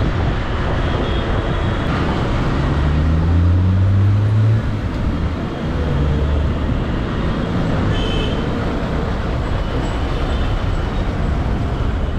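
Motorcycle riding in city traffic: steady engine, road and wind noise. A deeper engine tone rises in pitch from about three to four and a half seconds in, and there is a short high beep about eight seconds in.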